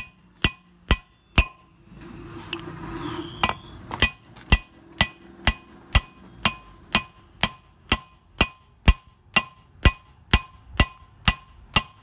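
Hammer tapping a new wheel bearing into a car's rear brake drum hub through a steel ring laid over the bearing: steady ringing metal-on-metal strikes, about two a second, with a pause of about two seconds near the start. The bearing is being driven in a little at a time until it seats fully.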